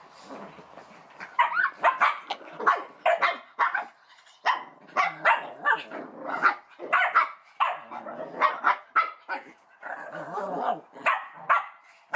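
Small puppies barking in rapid short bursts as they wrestle in play, starting about a second and a half in.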